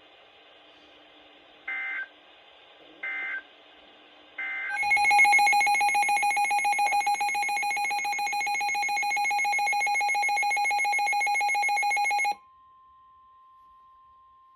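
Three short bursts of NOAA Weather Radio SAME alert header data, then a loud, rapidly pulsing electronic alarm for about seven seconds, typical of a weather alert receiver going off on a decoded alert. It cuts off, and the steady 1050 Hz weather radio warning tone follows faintly.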